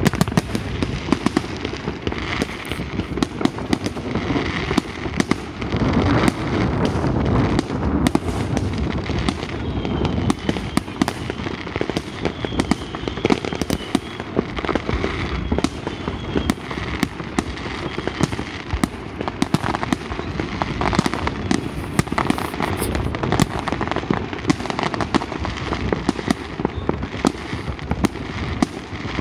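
Fireworks display: a dense, continuous barrage of bangs and crackling from shells bursting, with a few faint whistles midway.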